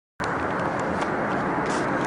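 A steady, dense rushing noise cuts in abruptly a moment in, after dead silence: the loud, unexplained outdoor noise that was being recorded.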